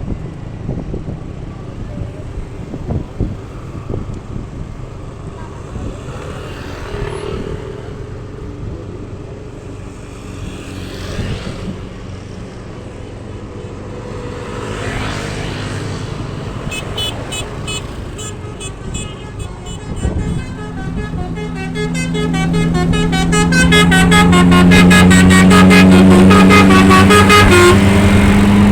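Road traffic with vehicles passing, then a bus's basuri (telolet) multi-tone air horn starts up about halfway through: fast repeating pulsed notes that speed up, swelling into a loud sustained horn chord near the end.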